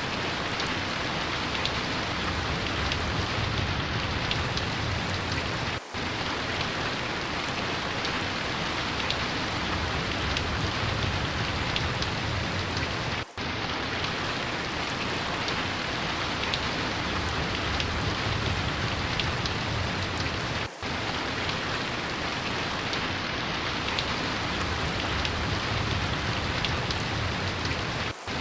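Steady heavy rain, with a low rumble of distant thunder swelling and fading under it. The sound drops out for an instant about every seven and a half seconds, where the recording loops.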